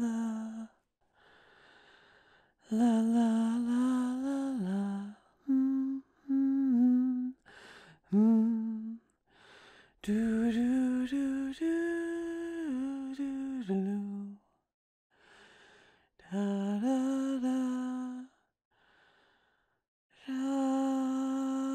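A woman humming a slow lullaby: phrases of held notes that step up and down in pitch, with soft breaths in the short pauses between phrases.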